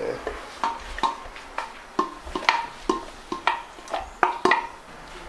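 A spoon knocking and scraping against a metal pressure cooker as shredded chicken is emptied into a bowl: irregular sharp knocks, about three a second, each with a short metallic ring.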